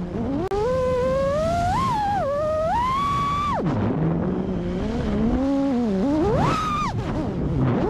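FPV freestyle quadcopter's brushless motors and props whining, the pitch sweeping up and down with the throttle. About halfway through the pitch falls to a low hum as the throttle is chopped, then climbs sharply as it is punched again near the end.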